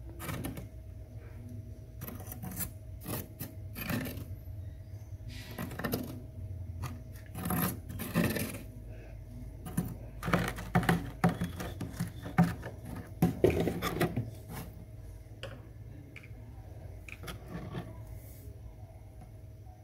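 A plastic ice cube tray is worked loose from packed freezer frost: irregular crunching, scraping and clicking of frost and plastic, busiest past the middle. A steady low hum runs underneath.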